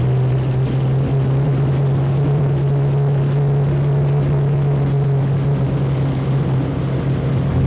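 Inboard engine of a wooden Garwood runabout running at speed, a steady low drone that holds one pitch, over the rush of water off the hull.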